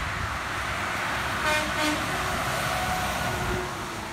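Peterbilt semi truck's air horn giving two short blasts about half a second apart, over the steady hiss of traffic on a wet highway.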